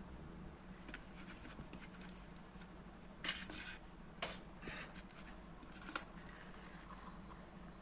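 Faint scratching and rustling handling noises, with a few louder scrapes about three, four and six seconds in, over a low steady hum.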